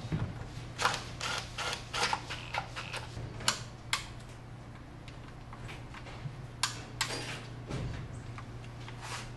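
Hand wrench tightening transmission oil pan bolts, giving sharp metallic clicks in scattered groups: a quick run of clicks about a second in, then pairs of clicks near the middle and again later. A steady low hum runs underneath.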